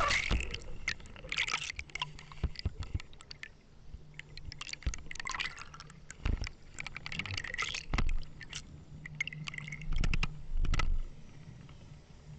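Water splashing and sloshing with repeated knocks and thumps, over a steady low hum from the boat's engine.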